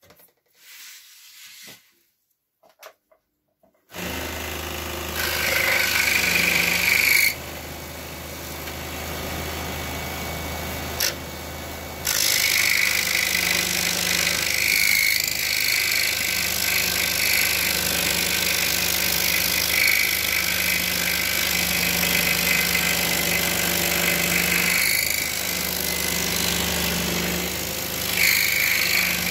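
Pégas 21-inch (535 mm) Precision Scroll Saw switched on about four seconds in, its blade running with a steady low hum. From about twelve seconds in it cuts steadily through a wooden board along the outer contour, a louder rasping that goes on to the end.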